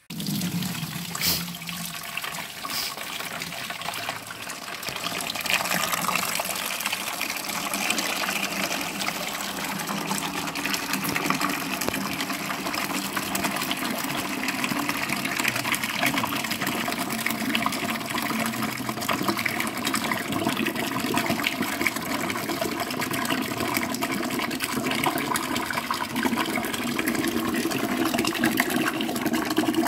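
Watery newspaper pulp slurry gushing from a machine's drain tap through a hose into a plastic bucket, a steady pouring and splashing that grows louder about five seconds in.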